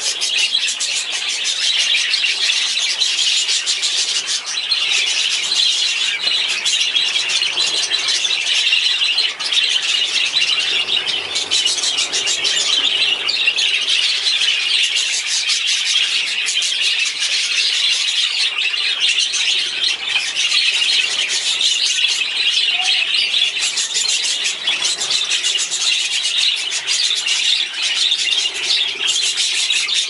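A flock of many budgerigars chattering and chirping all at once: a dense, continuous, high-pitched warble with no pauses.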